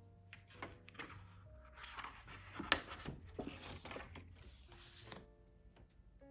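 Photo prints and stiff album pages being handled and slid across a desk: paper rustling and scraping for a few seconds, with one sharp tap about halfway through, over quiet background music.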